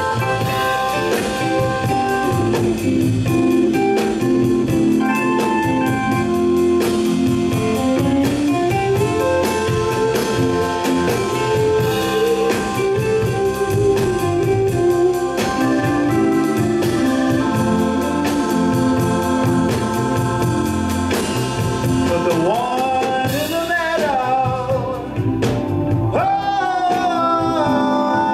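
A live band playing: sustained Hammond organ chords over electric guitar, bass and drums. A singer's voice comes in near the end, sliding up and down in pitch.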